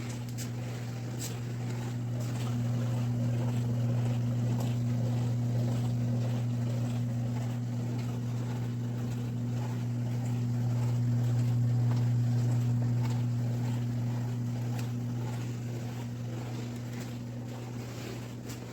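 COMFEE portable countertop mini dishwasher giving off a steady low electrical buzz with a higher overtone, swelling louder through the middle and easing, then falling away near the end. It is an odd buzzing that the owner cannot place.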